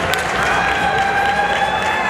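Arena crowd cheering and clapping during a barrel racing run, with one long held note rising above the crowd noise.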